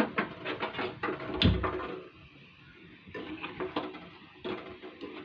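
Gulab jamun dough balls frying in hot oil in a metal pan, crackling, while a metal slotted ladle scrapes and taps against the pan, with one heavier knock about a second and a half in.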